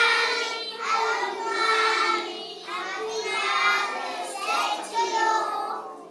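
A group of preschool children singing a song together over a backing track. The singing stops near the end while the backing music carries on.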